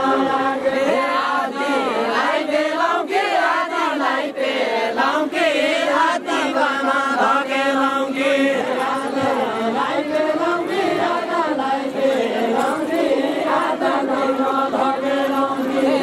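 A group of voices singing a Deuda, the Nepali folk song, together.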